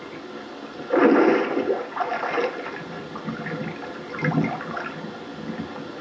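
River water rushing and splashing at the edge, with a loud splash about a second in and smaller ones about two and four seconds in, from hands moving in the shallows.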